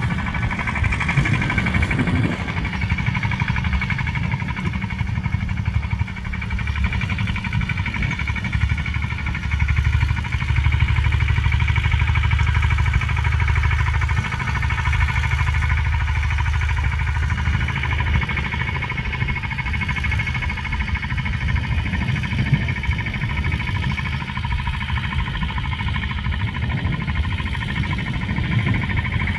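Small tractor's diesel engine running steadily as it drives across a field with its mounted boom sprayer spraying. It gets louder from about ten to fourteen seconds in.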